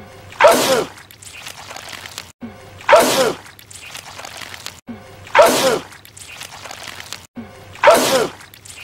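A man's loud sneeze, repeated four times at even intervals about two and a half seconds apart. Each sneeze is a sharp blast with a falling vocal cry, and all four look the same, so it is one sneeze looped.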